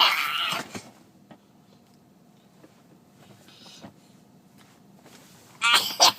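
A parent and baby's playful vocal sounds: a loud breathy burst at the start, a few seconds of quiet room, then a short loud burst of high voice sounds near the end.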